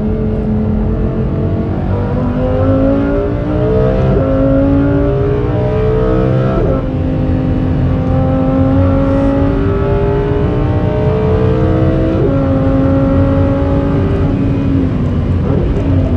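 Lamborghini Huracán Performante's naturally aspirated V10 on its stock exhaust, accelerating hard: the engine note climbs and drops sharply at three upshifts, about four, seven and twelve seconds in, each gear pulling longer than the one before. After the last shift the note holds, then eases off near the end.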